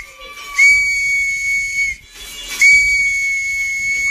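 A small plastic toy whistle blown in two long, steady, shrill blasts with a short pause between them.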